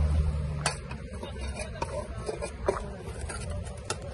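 Shovel blade scraping and knocking on concrete as storm debris is scooped out of a roadside drain: about six short, sharp knocks spread over the few seconds, over a low rumble that fades in the first second.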